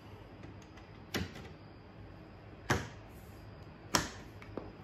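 Plastic clips of a black hood vent cover snapping into a Range Rover Sport's hood as the trim is pressed home: three sharp clicks, about a second and a half apart.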